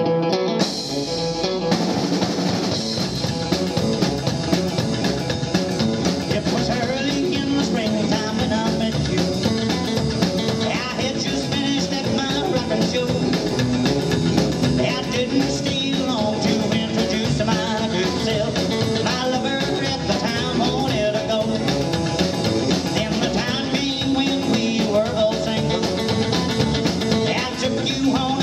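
Live rockabilly trio playing: upright double bass, drum kit and electric guitar in a steady rock 'n' roll beat.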